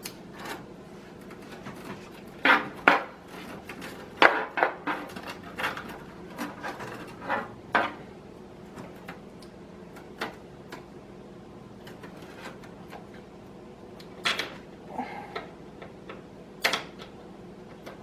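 PCIe power cables and their plastic connectors handled inside a PC case: irregular clicks, taps and short rustles as the cable is routed to a graphics card, the loudest few coming a few seconds in.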